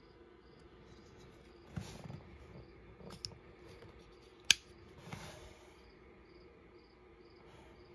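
A ZT0393 folding knife being handled, with soft rustles and one sharp click from the knife about halfway through. Crickets chirp steadily in the background.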